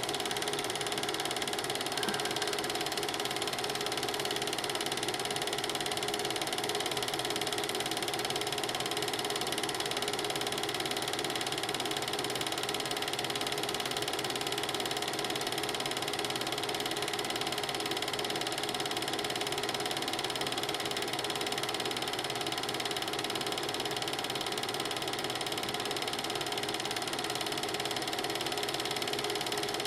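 A film projector running: an even mechanical running sound with several steady tones over hiss, unchanging throughout, from a silent amateur film being played back.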